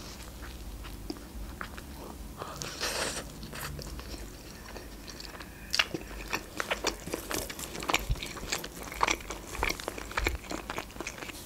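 Close-up eating sounds: a person biting into a toasted tombik doner in grilled bread and chewing it with crunches. Short sharp mouth clicks and crunches come thick and fast from about halfway through.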